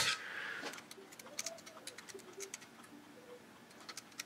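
Faint scattered clicks and ticks of multimeter probe tips being set against the metal terminal tabs of a washing-machine motor's centrifugal switch.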